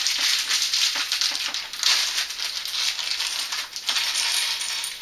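A small plastic bag crinkling as it is handled and emptied, with small LEGO pieces clicking and clattering onto a wooden tabletop.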